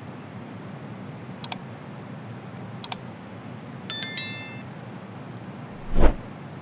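Subscribe-button animation sound effects: two quick double mouse clicks about a second and a half apart, a bell-like chime as the notification bell is clicked, then a louder falling whoosh near the end, over the steady rush of a river.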